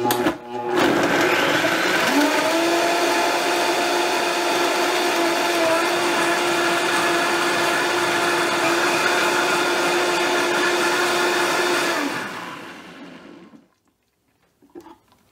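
Countertop blender running at high speed, blending ice cubes, spinach and fruit into a smoothie. The motor's pitch rises about two seconds in, then holds steady until it is switched off near the end and spins down.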